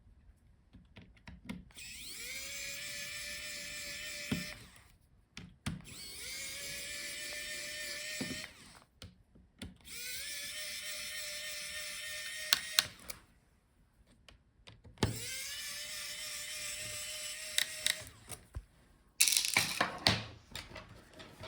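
A small electric screwdriver running four times, each run about two and a half seconds long. It spins up quickly at the start of each run and then whines steadily while backing out the laptop's hinge screws. Sharp clicks of parts being handled come between the runs, with a short clatter near the end.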